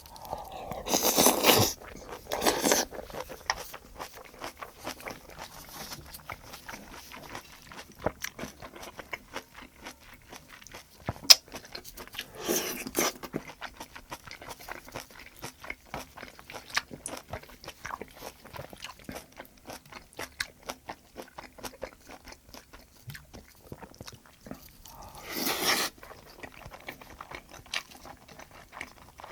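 Close-miked chewing and wet mouth clicks of someone eating braised kimchi stew with rice, with a few louder noisy sounds, each about a second long, near the start, in the middle and near the end.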